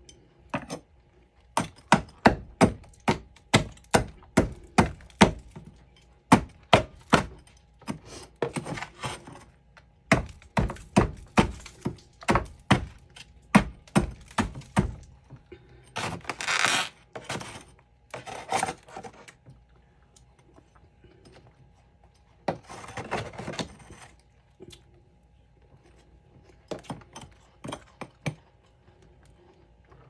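Close-up crunching of freezer frost being chewed: rapid, regular crunches about two a second for the first half, a longer hissing crunch about halfway through, then scattered clusters of crunches that thin out toward the end.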